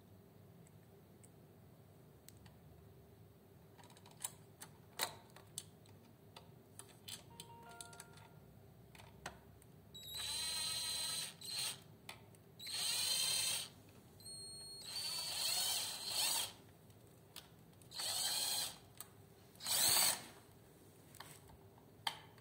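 Cordless drill-driver driving screws into a sheet-metal box cover, running in about five short bursts with a whine, after a few small clicks and knocks of handling.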